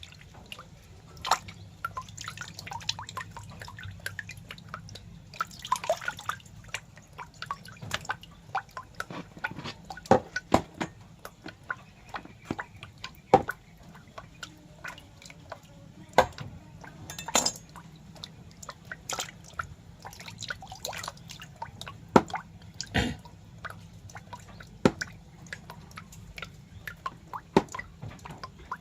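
Irregular wet drips and clicks, sometimes close together and sometimes a few seconds apart, over a faint steady low hum.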